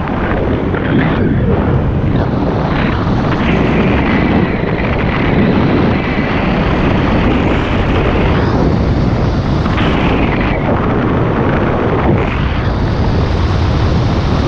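Wind rushing and buffeting over the microphone of a camera mounted on a hang glider in flight, a steady loud noise of airflow.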